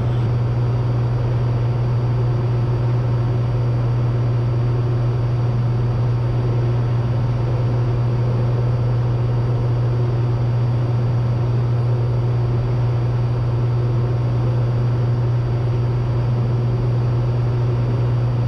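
Steady drone of a Cessna 182T's six-cylinder Lycoming engine and propeller in level cruise, heard inside the cabin, with a deep, even hum and no change in pitch or level.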